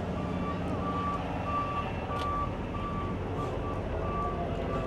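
A vehicle's reversing alarm beeping steadily, a single tone repeating about one and a half times a second, over the low hum of a running engine.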